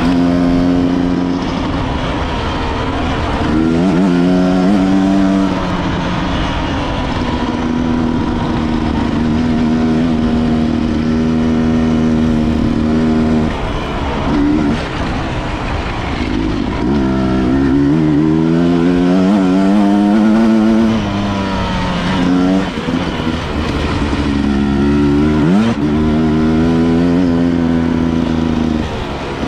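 A 250 cc enduro motorcycle engine running under way, holding steady revs for stretches and revving up and easing off several times as the rider works the throttle and gears.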